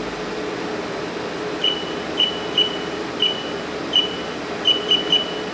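Haas VF2-SS vertical machining center's spindle running steadily at 2,000 rpm, a constant hum. From about a second and a half in, a string of about eight short high beeps at uneven spacing, like key presses on the Haas CNC control.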